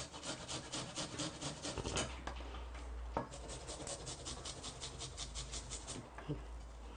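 A garlic clove being grated finely on a hand rasp grater: quick, even scraping strokes, about six a second, in two runs with a short break and a couple of light knocks around the middle.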